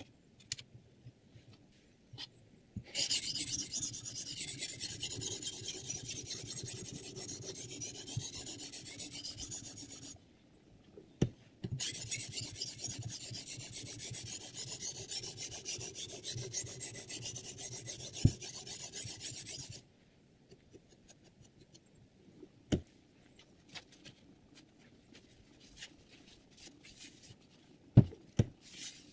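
A sharpening stone on a guided-rod knife sharpener rasping back and forth along a steel chef knife's edge, in two long runs of quick strokes separated by a short pause. Afterwards come a few sharp clicks and knocks, the loudest near the end.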